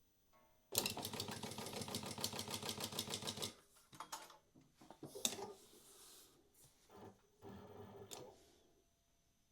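Industrial walking foot sewing machine, a Prosew PS-1903SX, running a programmed row of stitches at a fast, even rhythm for about three seconds and then stopping, just after a brief whine at the start. Scattered irregular clicks and knocks follow after it stops.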